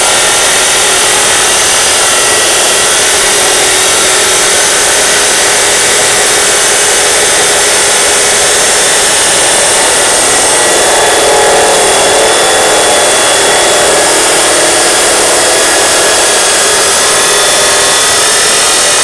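Osaka 2300 W abrasive cut-off saw grinding steadily through thick 4–5 mm steel under heavy feed pressure, the disc running loud and continuous; the grinding grows somewhat fuller about eleven seconds in.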